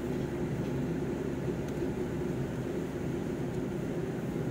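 Steady engine and road noise inside a moving vehicle's cabin: an even low hum with faint steady engine tones.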